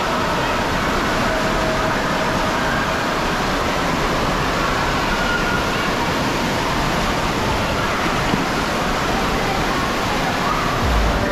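Water gushing steadily out of the end of an enclosed tube water slide into the splash pool, a constant rushing splash.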